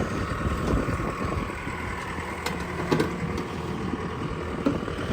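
Skid steer's diesel engine running steadily as the machine is worked on the trailer, with a few short sharp knocks partway through.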